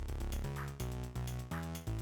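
Background electronic music with a steady beat and a bass line that changes every few beats.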